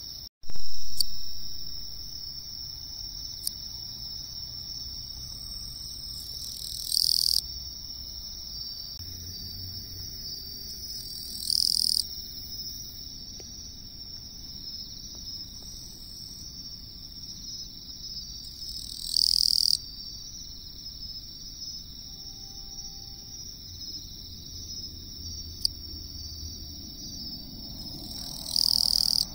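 A katydid singing four loud, buzzy chirps of under a second each, several seconds apart, over a steady high chorus of other insects. A brief loud thump comes just after the start.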